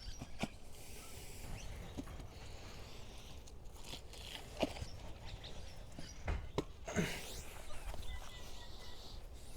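Guavas being picked by hand and dropped into a bucket: a handful of scattered soft knocks, about six in all, with light rustling between them.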